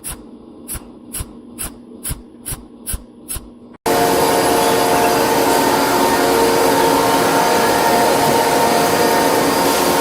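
Factory machinery: a regular run of short, sharp strokes, about two or three a second, then an abrupt change about four seconds in to a loud, steady machining noise with a constant whine, as of a power tool cutting or grinding.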